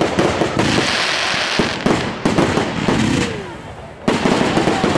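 Aerial fireworks bursting overhead, a rapid string of sharp bangs with a dense crackle about a second in. There is a short lull, then another loud bang about four seconds in.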